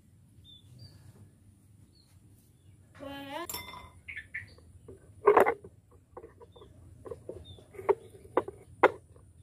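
Several sharp clicks and clinks, the loudest about five seconds in and three more in quick succession near the end. Faint bird chirps come before them, and a short rising squeal about three seconds in.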